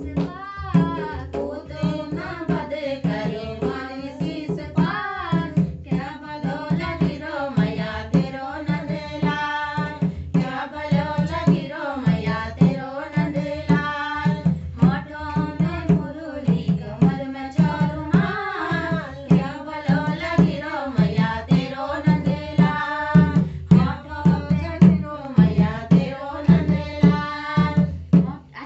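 Several women singing a folk song together over a steady beat of hand strokes on a barrel-shaped dholak drum, with hand clapping.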